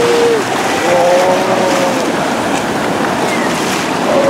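Surf breaking and churning against a rocky island shore, with sea lions calling over it: a short arching call at the start, a longer drawn-out call from about half a second in, and another brief call near the end.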